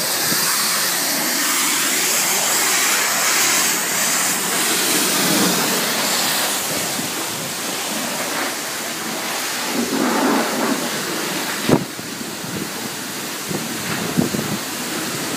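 High-pressure car-wash wand spraying hot water, a steady hiss with water spattering against the side of a bus. One sharp knock comes about three-quarters of the way through.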